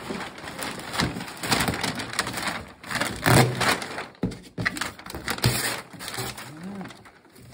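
Plastic bag wrapping crinkling and crackling as it is torn and pulled away from a cardboard box, in uneven bursts, loudest a little before halfway through.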